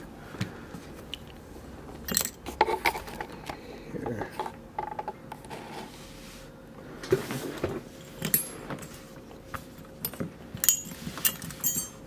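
Irregular small metallic clicks and clinks from a brass Mul-T-Lock 7x7 dimple lock cylinder and its key being handled and picked up.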